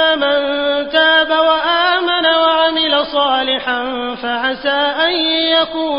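A man reciting the Quran in Arabic in the melodic, chanted style of tajweed, drawing out long held notes with ornamented turns in pitch.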